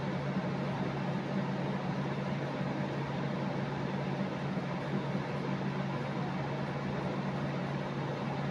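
Steady hum of a running room appliance, several low tones held over an even hiss.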